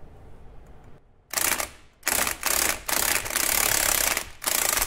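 Impact wrench hammering in five bursts, the longest over a second, starting about a second in. It is driving the forcing screw of a three-jaw puller to press the pinion flange off a Ford 8.8 rear differential.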